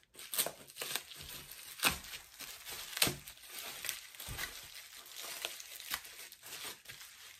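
Clear plastic wrapping crinkling and tearing as it is pulled off a book by hand, in irregular crackles with a few sharper snaps.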